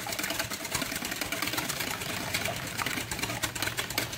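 Wire whisk beating eggs in a stainless steel mixing bowl: a rapid, steady clatter of the wires against the metal.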